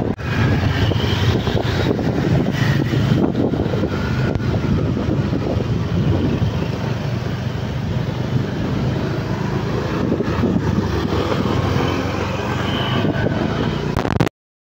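Vehicle engine and road noise while travelling along a street, with wind buffeting the microphone; the sound cuts off abruptly just before the end.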